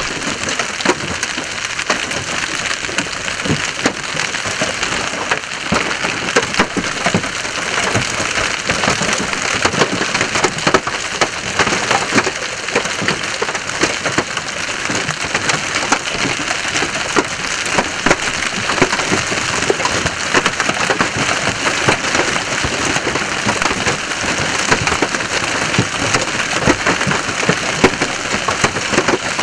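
Heavy hailstorm of golf-ball to tennis-ball sized hailstones: a dense, unbroken clatter of countless sharp impacts on the road and cars over a steady hiss.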